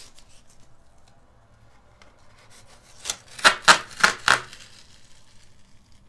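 Masking tape pulled off the roll in four quick rips, about three seconds in, amid light handling rustle.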